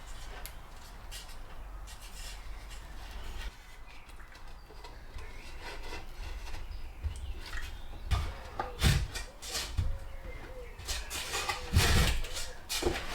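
Hand work on wood: rubbing and scraping, then from about eight seconds in a series of sharp knocks, the loudest near the end.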